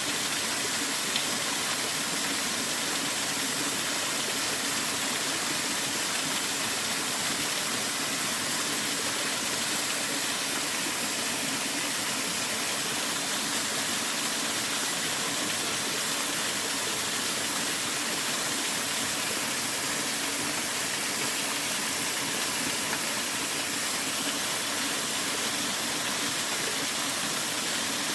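Mountain stream water rushing steadily, an even hiss of flowing water with no change.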